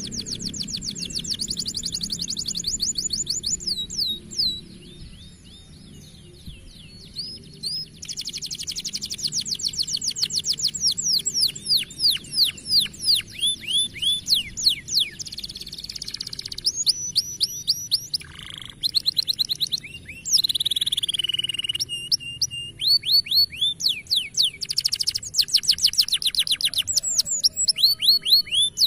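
Canary singing long, fast trills of rapidly repeated down-sweeping notes, changing from one phrase to the next, with a quieter patch around four to eight seconds in.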